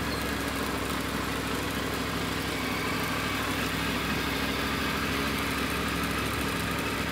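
Motorcycle engine running steadily at idle, with no throttle applied.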